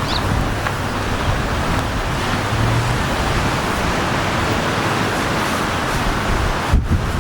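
Steady rushing outdoor noise with no clear single source, and wind buffeting the microphone near the end.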